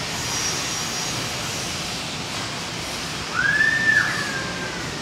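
Steady outdoor background noise, with one high whistle-like call about three seconds in that rises, holds briefly and falls away.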